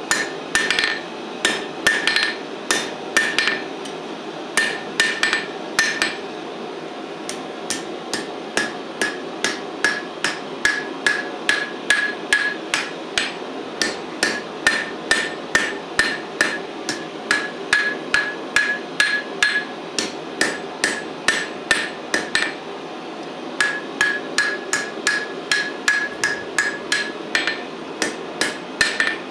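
A hand hammer strikes a red-hot steel bar on an anvil in steady runs of about two to three blows a second. Each blow carries a short ringing note from the anvil. The hammering pauses briefly twice.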